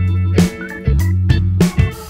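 Instrumental background music: a funky groove with a repeating bass line, plucked guitar notes and sharp drum hits.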